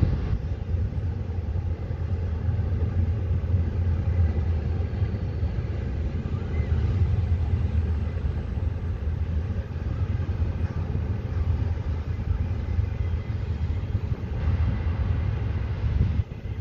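Double-stack container freight train passing, a steady low rumble that drops away abruptly near the end.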